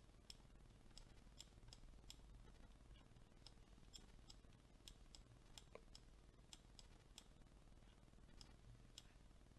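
Near silence: faint room tone with scattered, irregular faint clicks, a few a second, from a computer mouse being clicked and scrolled.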